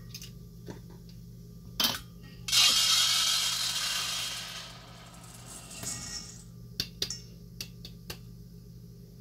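Aroma beads, small plastic pellets, pouring from a glass jar into a stainless steel mixing bowl: a knock, then a rushing rattle for about two seconds starting some two and a half seconds in and fading out. A few light clicks follow.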